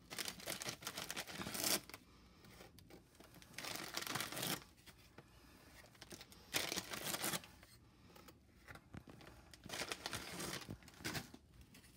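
Plastic sleeve of graham crackers crinkling in four separate bursts as crackers are pulled out of it.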